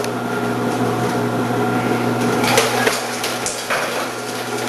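Omcan HLC 300 vegetable slicer's motor running with a steady hum while its slicing disc cuts cucumbers fed down the chute, with a few sharp knocks as the pieces hit the blade, about two and a half and four seconds in.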